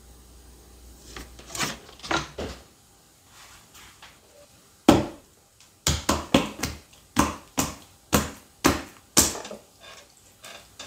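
Hands slapping a ball of soft clay down onto the pottery wheel head: a few light hits, one sharp slap about halfway, then a quick run of sharp slaps at about two a second.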